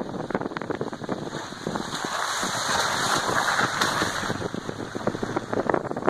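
1997 Nissan Pathfinder's tyres rolling over a wet gravel forest road: a steady patter of small stones crackling under the tread, with a hiss of wind and tyre noise that swells for a couple of seconds in the middle.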